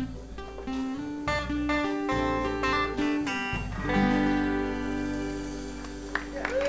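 Live outro music on plucked string instruments: short plucked notes over a steady low bass line, settling into a long held chord about four seconds in.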